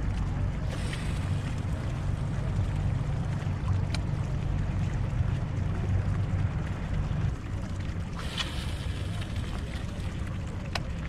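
Wind buffeting the microphone on a small open boat on the water: a steady low rumble that eases about seven seconds in. A few faint clicks sound over it.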